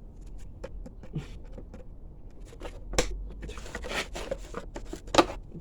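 Clips being worked off the Yamaha WR450F by hand: a run of small clicks, scrapes and rattles, with a sharp snap about three seconds in and a louder snap near the end.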